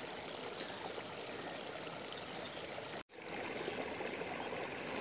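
Steady rush of water in a mountain stream fed by runoff from the mountains, with a brief dropout about three seconds in.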